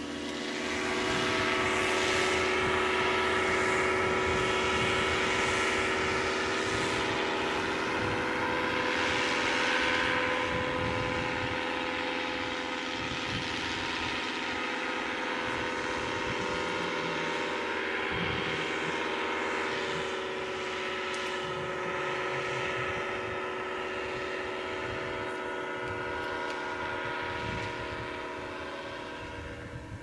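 Paramotor's two-stroke engine and propeller running in flight, a steady pitched drone that is loudest in the first ten seconds and slowly fades away near the end.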